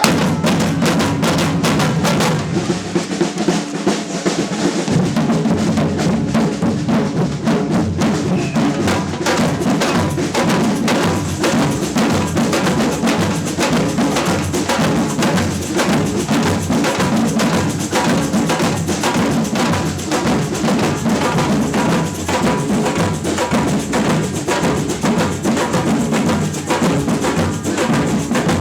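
Samba percussion band playing a steady, driving rhythm on drums.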